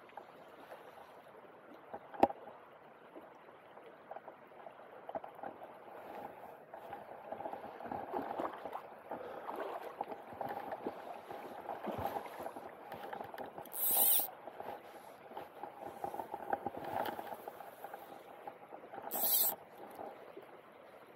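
Shallow river water rippling and gurgling over stones close to the microphone, a steady flowing sound. A sharp tap comes about two seconds in, and two short high hisses come later, the second near the end.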